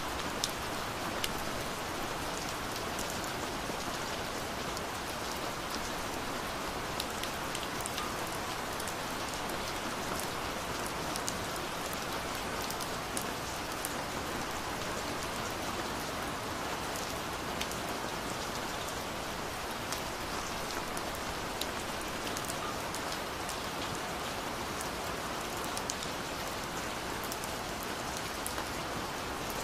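Gentle rain falling steadily: an even hiss with many single drops ticking sharply here and there.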